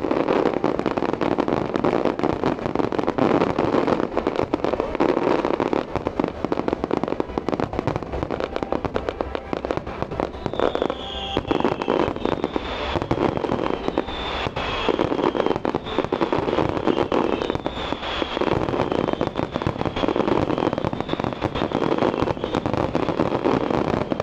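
Large fireworks display: a dense, continuous barrage of bangs and crackling from aerial shells bursting. About halfway through, a run of short falling whistles starts, one about every second.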